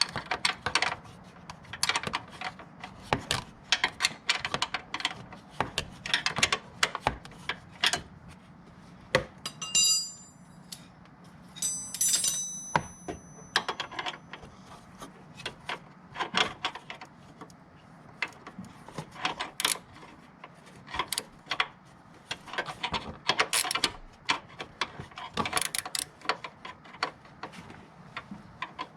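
Hand tools clicking and clanking against metal parts in irregular knocks, with two short metallic rings about ten and twelve seconds in.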